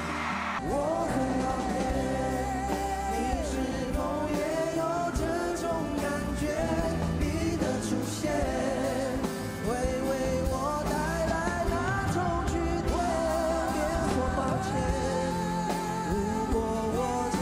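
Male voices singing a Mandarin pop ballad live in concert, accompanied by grand piano.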